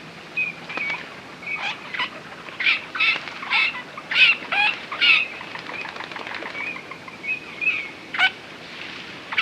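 Eurasian (common) teal calling: a series of short, high, clear notes, about two a second through the middle, with softer notes before and after.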